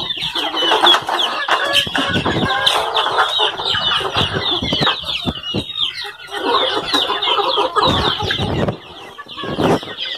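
A large flock of native chickens clucking and calling continuously as they feed, with many short high calls over lower clucks. The calling eases briefly near the end, then picks up again.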